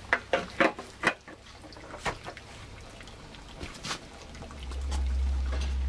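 Sap trickling and a few sharp clinks and knocks around the sap pots at a wood-fired maple sap evaporator. About four and a half seconds in, a steady low rumble comes up and stays.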